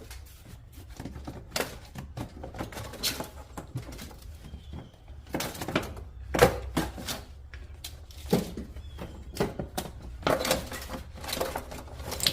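Irregular clicks and knocks of tools and parts being handled, the sharpest about six seconds in, over a low steady hum.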